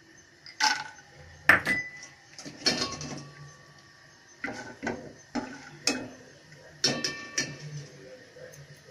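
A metal utensil knocks and clinks against a nonstick frying pan while peanuts fry in shallow oil and are stirred. There are a dozen or so irregular sharp knocks, each with a brief ring, the loudest about a second and a half in.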